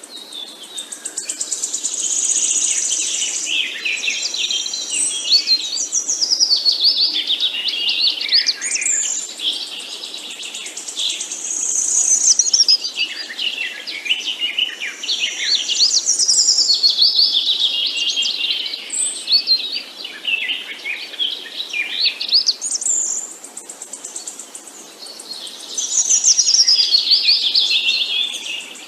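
Songbirds singing and chirping together: overlapping rapid trills and quick sweeping notes that swell and fade every few seconds.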